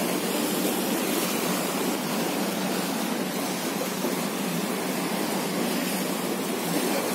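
Steady rushing outdoor noise with no distinct events or voices.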